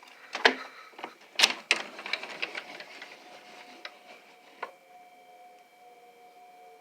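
A quick run of clicks and knocks, handling noise, for about four and a half seconds. Then the faint, steady, multi-note wail of an outdoor tornado warning siren comes through.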